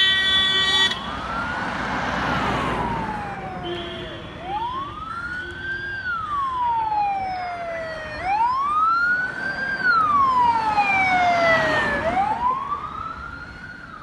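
A vehicle siren wailing, its pitch sweeping up quickly and falling slowly about every four seconds, with a second siren overlapping it in the second half. A loud horn blast right at the start.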